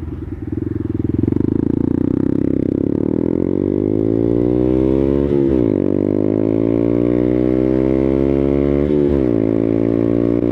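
Honda Grom's 125 cc single-cylinder four-stroke engine through a Two Brothers aftermarket exhaust, heard from the saddle as the bike accelerates. The revs climb steadily, then drop and climb again twice, about five and a half and nine seconds in, as the rider shifts up.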